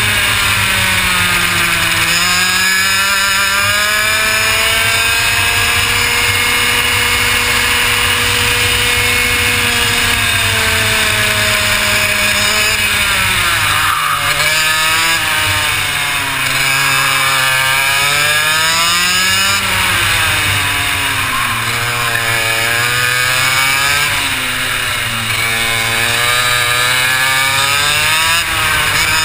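Two-stroke racing kart engine on a flying lap. It holds a high pitch along a straight, then drops and climbs again several times as the kart brakes for tight corners and accelerates out of them, rising once more near the end.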